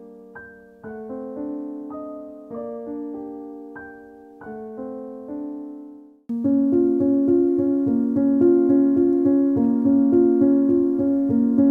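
Background piano music. Slow chords ring and fade, then about six seconds in it cuts to a louder piano passage of quick, steadily repeated notes.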